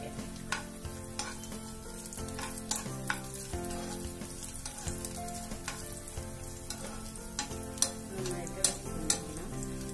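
Small diced pieces and cashews sizzling as they fry in a non-stick pan, stirred with a steel spoon that clicks and scrapes against the pan, with the sharpest clicks a little before the end.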